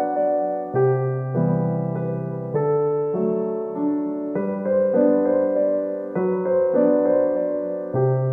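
Soft background piano music: a gentle melody of held notes over chords that change about every second.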